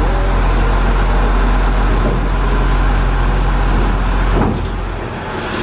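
Diesel railcar engine idling with a steady low hum. About four and a half seconds in, a short burst of hiss sounds, and the deep hum then drops away.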